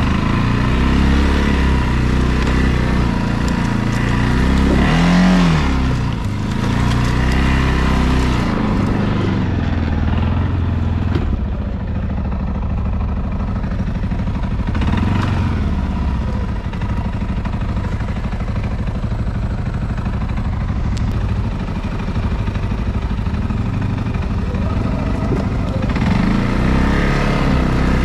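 ATV engine running as it is ridden, its pitch rising and falling with the throttle near the start, around five seconds in, and again near the end.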